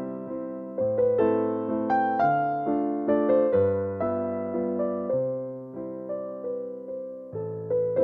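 Background piano music: a slow, gentle melody of single notes, each struck and left to fade, a new note about every half second.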